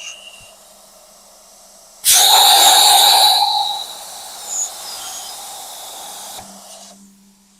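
Stamos Plasma 85 hand-held air plasma cutter set to 85 amps. Over a low hum, about two seconds in the torch fires with a sudden loud hiss, which eases after a second and a half into a steadier hiss as it cuts, then cuts off near the end.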